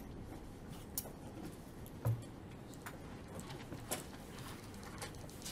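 A dry-erase marker writing a word on a whiteboard: a string of short, sharp taps and scratches, irregularly spaced about every half second to a second, over faint room tone.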